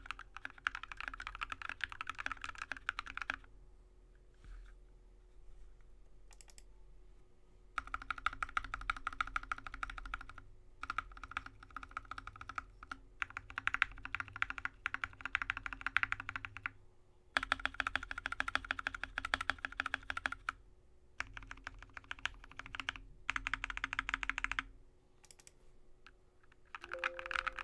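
Fast typing on a Drop ALT mechanical keyboard with lubed, filmed Alpaca linear switches and MT3 keycaps: runs of rapid keystrokes broken by a few pauses, the longest near the start and near the end.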